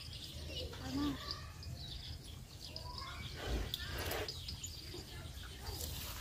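Quiet farmyard ambience: faint bird chirps and indistinct voices over a steady low rumble.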